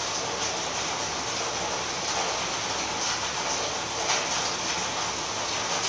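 Heavy rain falling steadily, a continuous even hiss, with a soft knock about four seconds in.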